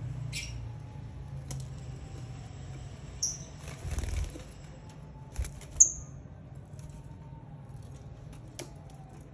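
A lovebird's wings fluttering briefly about four seconds in, among small rustles and clicks, with three short, high bird chirps: near the start, around three seconds and just before six seconds.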